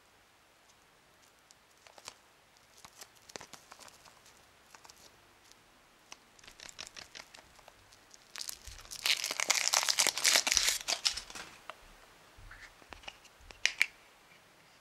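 Thin foil wrapper of a Kinder Surprise chocolate egg being peeled off by hand: scattered crinkling and tearing that builds to a dense, loud stretch of crinkling past the middle. Near the end come a few sharp cracks as the hollow chocolate shell is split open.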